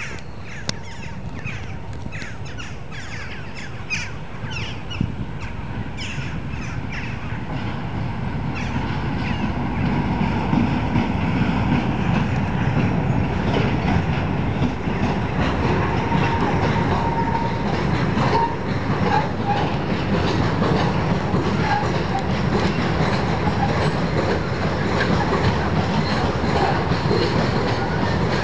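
Train running out of sight: a low rumble that grows louder until about ten seconds in, then holds steady.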